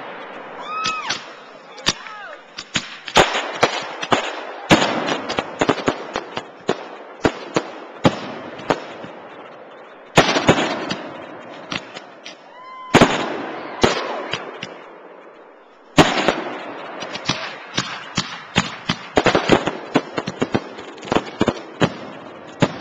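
Fireworks display: aerial shells and rockets bursting with loud bangs every few seconds and dense crackling between the bursts.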